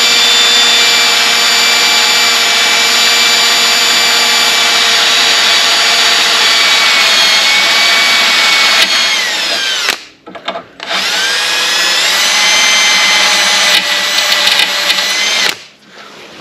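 Power drill with a cobalt bit drilling out a rusted, broken screw: it runs steadily for about ten seconds, stops briefly, then runs again for about five seconds, its pitch dropping a little before each stop.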